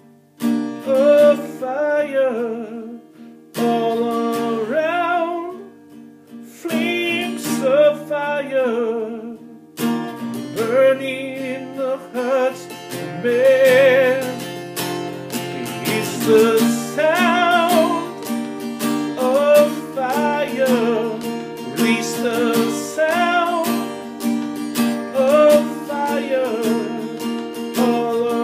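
Song music: an acoustic guitar strummed steadily, with a voice singing a wavering melody over it in phrases every few seconds.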